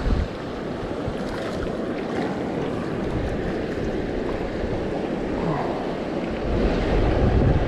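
Creek water rushing steadily, with wind buffeting the microphone; the low wind rumble grows stronger about six seconds in.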